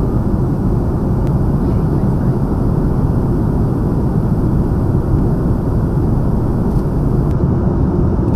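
Steady low rumble of jet engines and rushing air heard inside the cabin of a KC-30A (Airbus A330 MRTT) tanker in flight, unchanging throughout.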